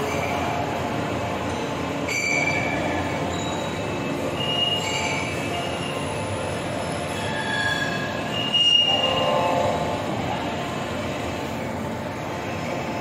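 Steady din of a forge shop around an electro-hydraulic forging hammer, with short high-pitched metallic squeals scattered through it. There is a clank about two seconds in and a louder one about two-thirds of the way in.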